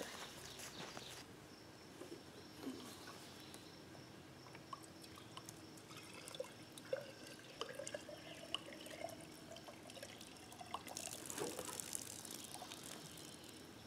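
Water poured from a plastic jug into a cast-iron pitcher pump to prime it, the pour loudest about eleven seconds in.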